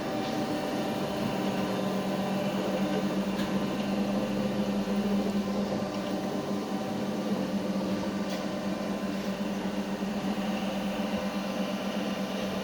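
Soviet 3B12 universal cylindrical grinding machine running: a steady motor hum with a strong low tone, and a couple of faint clicks.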